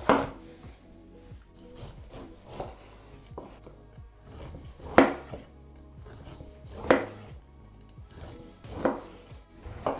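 Kitchen knife cutting food on a cutting board: a handful of separate sharp knocks roughly two seconds apart, the loudest about five seconds in, with smaller ticks between them.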